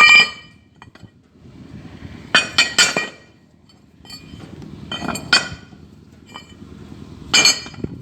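Metal parts clinking and ringing as they are struck or knocked together: a sharp clink at the start, a quick run of three a couple of seconds later, two more around the middle and one near the end.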